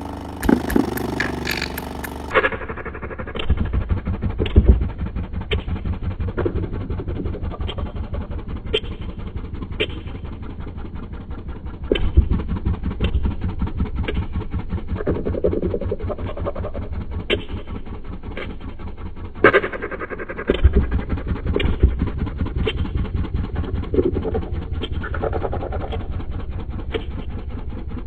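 Stereo Integrity 18-inch subwoofer driven at about 600 watts, playing a deep, loud bass tone, with rattling and sharp clicks coming every second or so.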